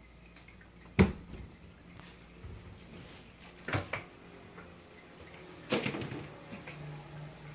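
A pet coughing in three short fits. The first is the sharpest and loudest, about a second in, and the next two come at about four and six seconds.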